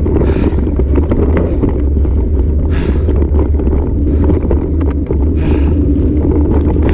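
Wind buffeting the microphone over the rumble and rattle of a bicycle rolling fast over a dirt trail, with scattered sharp clicks and knocks from the bike.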